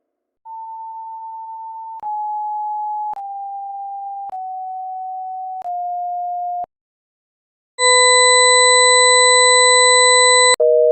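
Synthetic electronic alert tones: a single pure tone stepping down in pitch five times, with a click at each step, then a short pause and a louder buzzy tone for about three seconds. It is cut off by a click, and a telephone busy signal starts beeping near the end.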